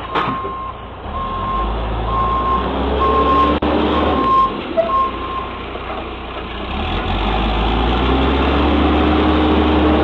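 Backhoe's backup alarm beeping about six times, roughly once a second, over its running diesel engine; the beeping stops about halfway through while the engine grows louder.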